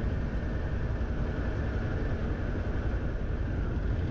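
Yamaha FZ-X's single-cylinder engine running at a steady cruising speed, under a steady rush of wind and road noise.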